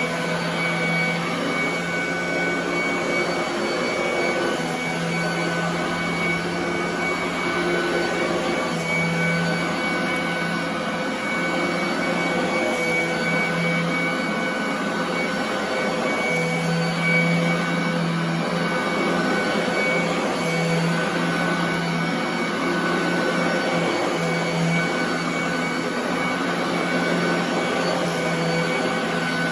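Royal commercial vacuum cleaner running steadily on carpet. Its motor hum and airflow hold constant, with a low tone in the hum that comes and goes every few seconds.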